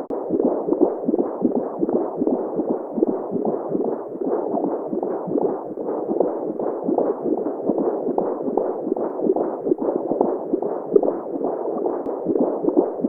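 Simulated womb sound: a steady, muffled whooshing noise with an even, rhythmic heartbeat-like pulsing running through it.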